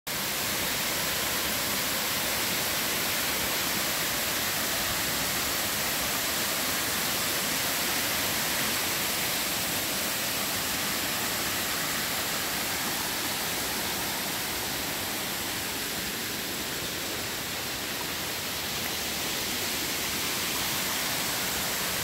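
Small waterfalls spilling over rock into pools, giving a steady rush of falling water.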